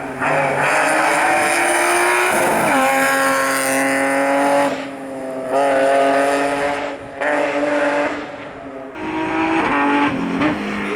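Rally car engine driven hard, its pitch climbing and then dropping several times as it shifts gear and lifts off the throttle, the sound dipping and swelling as the car moves past.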